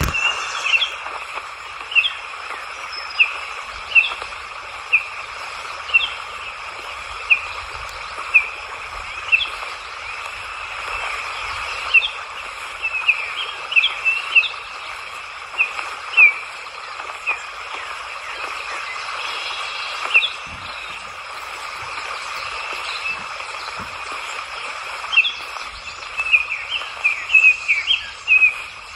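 A bird calling with short, sharp chirps, about one a second at first and then in quicker, irregular clusters, over a steady outdoor hiss.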